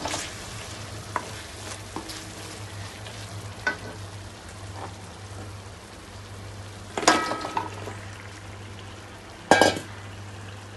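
Spiced masala sizzling in oil in an aluminium wok, with a few light taps of the stirring spoon. About seven seconds in and again near the end, cubed taro is tipped into the pan with a clatter and a burst of sizzling.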